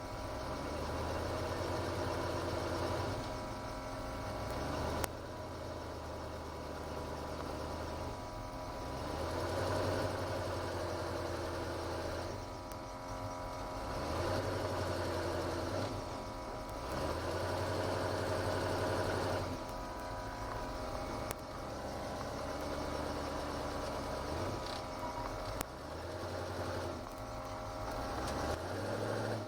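Ford GT40's V8 engine running under way, heard from the driver's seat. Its note swells and eases in alternating spells of a few seconds as the throttle is opened and lifted.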